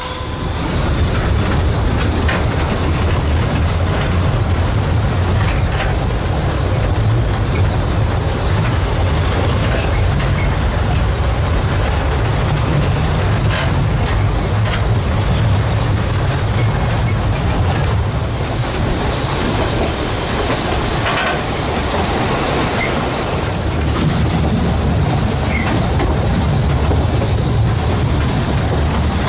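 A 750 mm narrow-gauge steam train running steadily along the line, heard from a passenger carriage.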